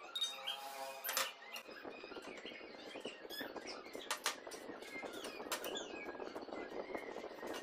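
A few light knocks and taps of a try square and pencil on wooden boards while marking out, over faint chirping and a steady background hiss.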